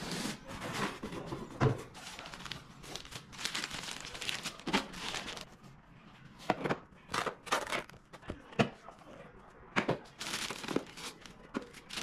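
Unpacking sounds: a cardboard box and its plastic wrapping being handled, with crinkling and rustling of plastic and several sharp knocks and clicks.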